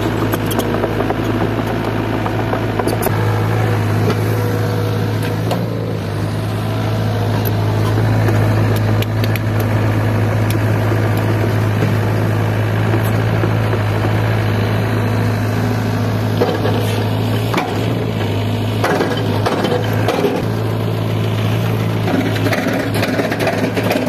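SDLG E680F crawler excavator's diesel engine running steadily under working load as it digs, with a few short knocks from the bucket and boom.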